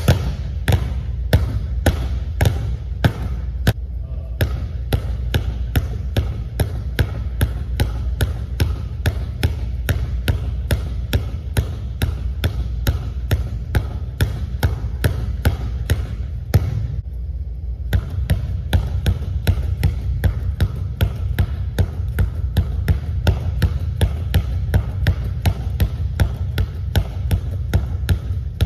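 Two basketballs dribbled hard on a hardwood gym floor: a quick, even run of sharp bounces, about three to four a second, over a steady low hum. The rhythm breaks briefly a little past halfway, then picks up again.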